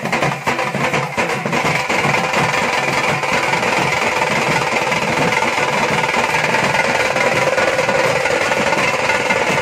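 Drum band of rope-laced barrel drums (dhol) and a small side drum beaten with sticks, with hand cymbals, playing a fast, dense rhythm. About two seconds in, the strokes merge into a continuous rapid roll.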